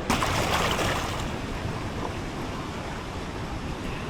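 Steady rush of a waterfall and its pool, with a sudden louder surge of splashing noise right at the start that fades over about a second.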